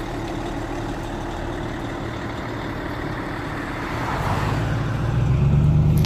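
Steady engine and road noise from a Prevost tour coach driving away and from the idling car it is filmed from, with a brief hiss about four seconds in. Near the end a deeper engine sound grows louder as the car pulls off.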